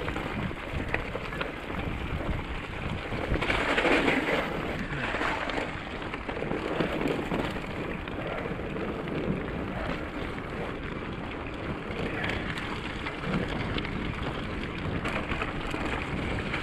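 Bicycle tyres rolling through wet slush and gravel, with wind buffeting the microphone in a steady low rumble. The noise grows louder for a second or so about four seconds in.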